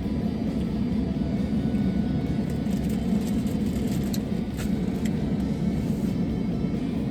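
Steady rumble of a car's engine and road noise heard inside the cabin, with a few faint small clicks midway.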